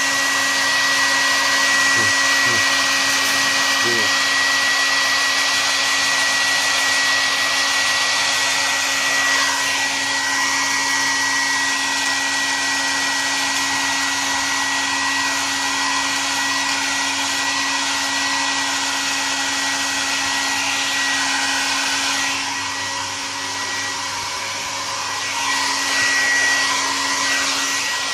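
Hair dryer blowing steadily: a continuous rushing of air with a thin, steady high whine, briefly a little quieter about three-quarters of the way through.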